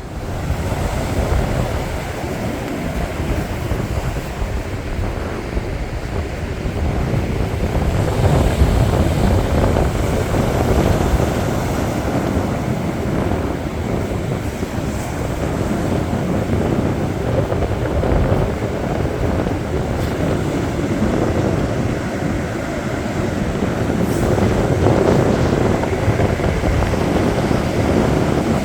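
Strong wind buffeting the microphone in a loud, steady low rumble, with waves washing on the beach beneath it.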